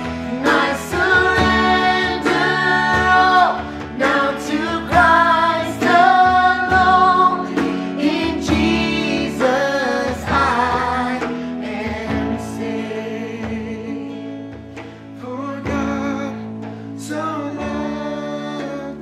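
A worship band playing a song live: several singers over acoustic guitar and keyboard, the singing strongest for the first twelve seconds or so and quieter after.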